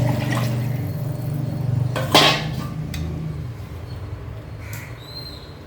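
Tamarind water poured into a pot of oil-fried onion and tomato masala, the pour and sizzle slowly getting quieter, with one sharp clank about two seconds in.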